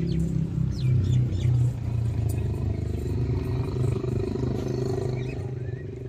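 A young bull's low, drawn-out bellowing rumble, swelling in the first two seconds and fading near the end.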